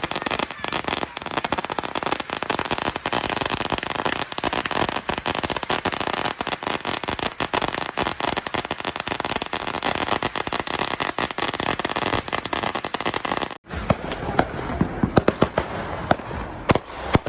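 Rapid crackling of firecrackers going off, a dense unbroken run of pops. About 13 seconds in it breaks off, and sparser, louder cracks follow.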